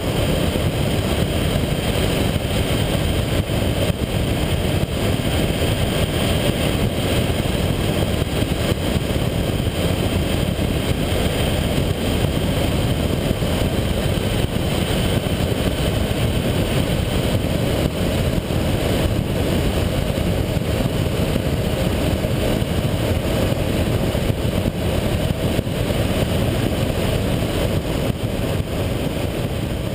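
Honda VFR800 motorcycle cruising at steady speed: a constant rush of wind and road noise on a camera mounted low by the front wheel, with the bike's V4 engine running underneath.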